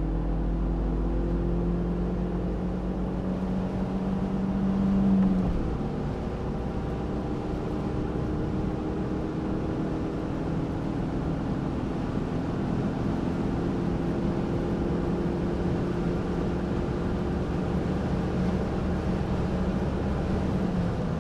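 BMW E36 316i Compact's M43 1.6-litre four-cylinder running on LPG and accelerating hard on the motorway from about 95 to 150 km/h, heard from inside the cabin with road and wind noise. The engine note climbs slowly, drops at a gear change about five seconds in, then climbs slowly again.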